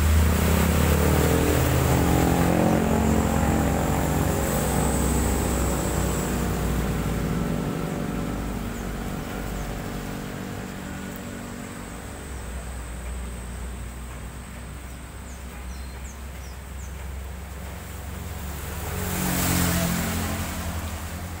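An intercity bus drives past on a wet road, its engine and tyre hiss loud at first and fading away over several seconds. Near the end, motorcycles pass with a brief swell of tyre hiss on the wet asphalt.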